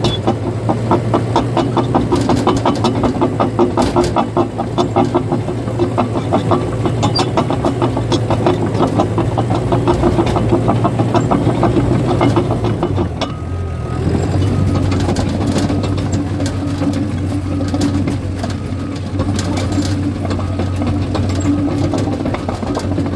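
Caterpillar bulldozer's diesel engine running steadily under a rapid, regular clatter from its steel tracks. About 13 seconds in, the engine note dips briefly, then settles slightly lower, and the track clatter eases.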